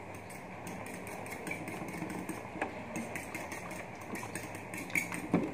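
Spoon stirring beaten egg in a glass bowl, with faint light ticks of the spoon against the glass and a louder knock near the end, over a steady low hum.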